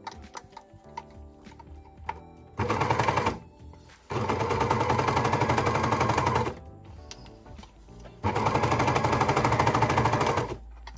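Overlocker (serger) stitching at speed in three short runs, a fast even rattle that starts and stops as the neckband is stretched out between clips: a brief run, then two longer ones of two to three seconds each.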